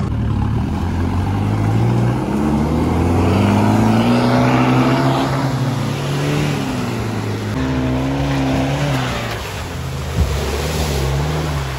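Off-road 4x4 engine revving hard while driving in sand, its pitch climbing over several seconds, dropping back, then climbing again before easing off. A sharp knock about ten seconds in.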